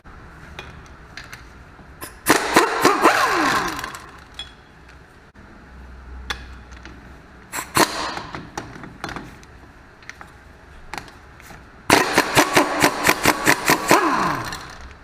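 Impact wrench taking off the axle flange nuts: three runs of rapid hammering, the first and last about two seconds each and a short one in the middle. Each run ends with the motor's whine falling as it spins down.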